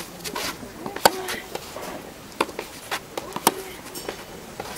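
Tennis balls struck by rackets during a baseline rally: a sharp crack of a racket hitting the ball about a second in, then four more knocks of hits and bounces spaced about half a second to a second apart.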